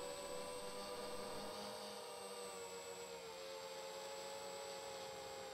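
A faint steady hum made of several whining tones, a couple of which drift slightly in pitch partway through.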